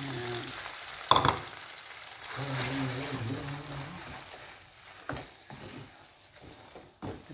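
Spaghetti and beaten egg with parmesan sizzling in a hot pan as they are stirred and tossed with a wooden spoon, the sizzle fading toward the end. A sharp knock about a second in.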